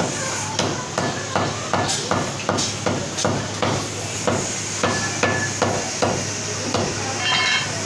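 Meat cleaver chopping a rack of mutton ribs into small pieces on a wooden chopping block: a steady run of sharp chops, about three a second, that stops near the end. A low steady hum runs underneath.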